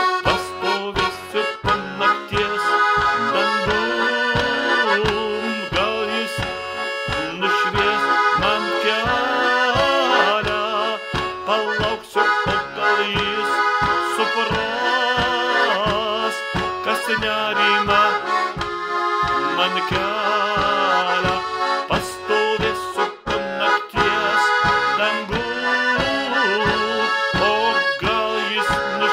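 Accordion played solo: an instrumental passage with a moving melody over a steady pulsing bass accompaniment.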